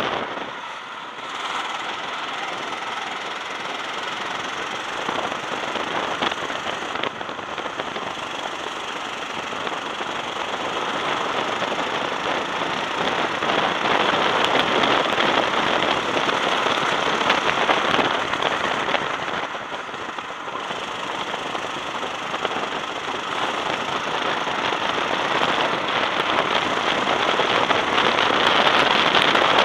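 Racing go-kart engine running hard under the driver, heard from the kart with wind noise on the microphone. Its level drops about a second in and again around twenty seconds, then climbs back as the kart picks up speed.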